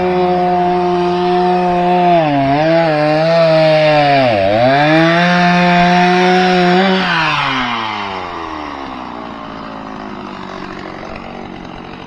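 Two-stroke chainsaw running at high revs and cutting into a log, its pitch dipping as it bogs down under load a few times. About seven seconds in, the revs fall away and the sound fades.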